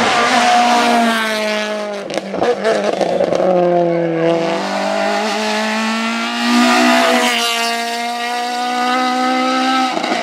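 Citroën Saxo rally car's four-cylinder engine driven hard as it approaches, corners and pulls away. The revs drop about two seconds in with a run of sharp cracks, then climb again through several gear changes.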